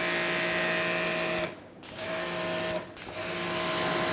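Prototype QUIVR electric pressure washer running with its gun spraying: a steady motor-and-pump hum under the hiss of the high-pressure water jet. The spray and hum stop briefly twice, about a second and a half in and again about three seconds in, then start again.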